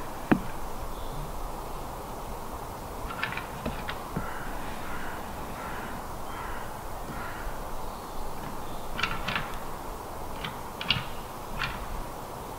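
Red deer stags' antlers clashing: a sharp crack about a third of a second in, a few clicks a few seconds later, and a run of clacks and rattles near the end.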